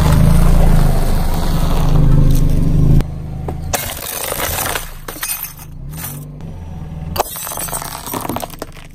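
A car tyre rolling over a stack of thin Oreo cookies, crunching them, over a low steady hum. After an abrupt change about three seconds in, the tyre crushes a plastic wall clock: crackling and snapping as the clock breaks, with a single sharp crack near the end.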